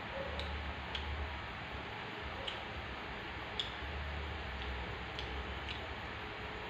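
Faint, scattered crisp clicks, about eight at irregular intervals, from crispy fried noodles being broken apart by hand and eaten, over a steady background hiss.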